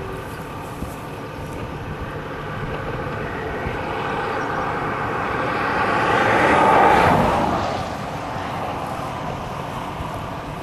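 An engine passes close by, swelling over several seconds and then falling away quickly about eight seconds in, over a steady background rumble.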